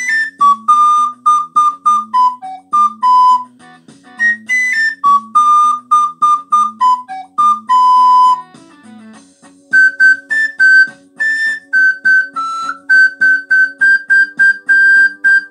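Soprano recorder playing a pop-song melody in short, separate notes over a backing track. About nine seconds in, the tune moves higher into runs of repeated notes.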